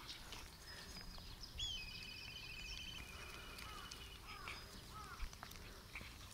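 Wild birds singing, with several rattling trills. One starts with a short rising note about one and a half seconds in and runs on for over a second, and a few short down-slurred chirps come around four seconds in. Faint outdoor background lies under them.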